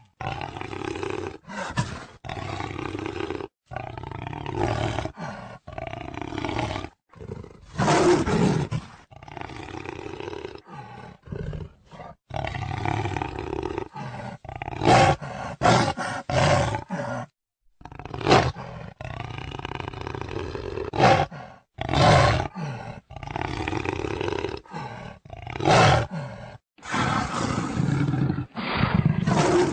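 Jaguar calling: a long string of short, rough roars and grunts, broken again and again by sudden short silences where the recording has been cut together.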